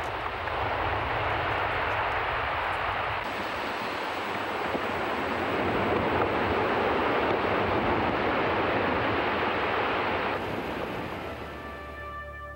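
Tidewater glacier calving: ice breaking off the face and crashing into the water, a long rushing roar that swells to its loudest about halfway through and then fades. Soft music comes in near the end.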